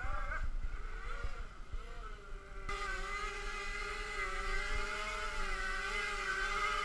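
Small multirotor drone's propellers and electric motors buzzing as it hovers close by, the pitch wavering slightly with throttle changes and growing fuller about three seconds in.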